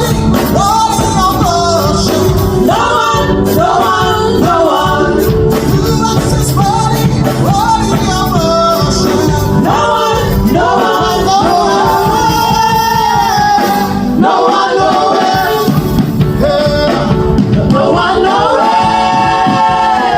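Gospel worship song rehearsal: singers over a full band, the low end dropping out briefly about two-thirds of the way through, then a long chord held near the end.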